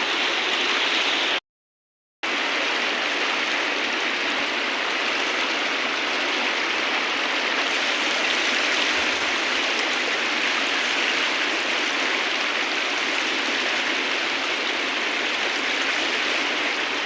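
A river rushing steadily, an even, dense hiss of flowing water; it cuts out completely for under a second about a second and a half in.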